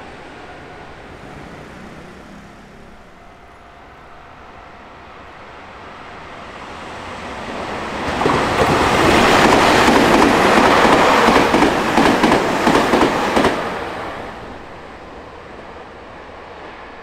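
Electric commuter train passing close by on overhead-wire track: a rumble that swells and becomes loud about eight seconds in, with rapid clacking of wheels over rail joints near the end of the pass, then fades by about fourteen seconds.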